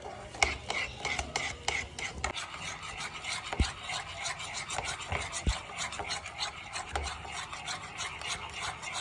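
Cake batter being mixed by hand in a bowl as flour is worked in: a utensil scrapes and knocks against the bowl in quick repeated strokes, several a second.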